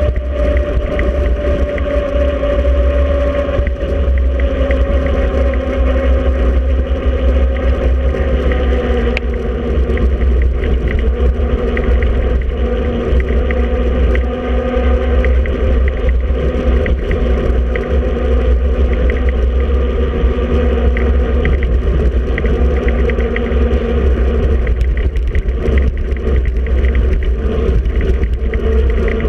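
Continuous riding noise from a bicycle-mounted action camera: heavy wind rumble on the microphone over a steady tyre hum whose pitch dips slightly partway through, with scattered small ticks and rattles.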